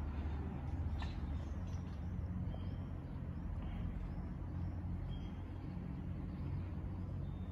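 Urban outdoor ambience: a steady low rumble of distant road traffic, with faint bird chirps scattered throughout and a single light click about a second in.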